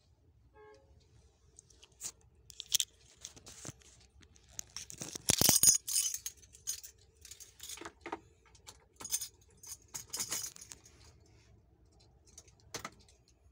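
Irregular clicks and rattles, with a dense clattering burst about five seconds in, over a faint low hum.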